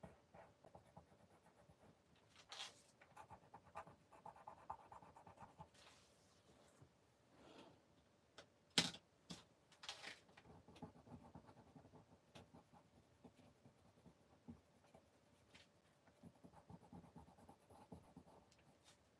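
Faint, intermittent scratching of a paintbrush working paint onto paper, with one sharp tap about nine seconds in.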